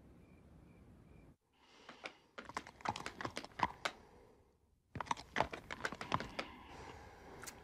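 Faint crickets chirping, five short high chirps, then a long irregular run of soft clicks and crackles with a short pause in the middle.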